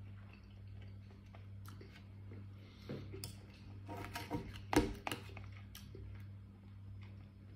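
Knife and fork scraping and clicking against a black plastic takeaway tray while cutting food, a run of short clicks and scrapes from about three seconds in, the loudest just before five seconds. A steady low hum runs underneath.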